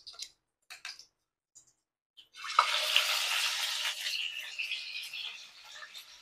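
Piece of tilapia dropped into hot cooking oil in a frying pan about two seconds in, setting off a loud sizzle with crackling that slowly dies down. Before it, a few faint pops from the heating oil.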